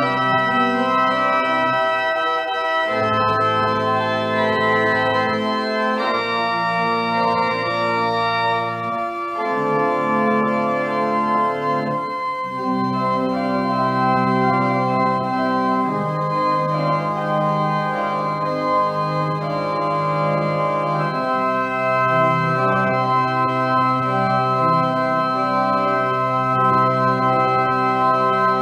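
Church organ playing slow sustained chords over held bass notes, the harmony changing every two to three seconds.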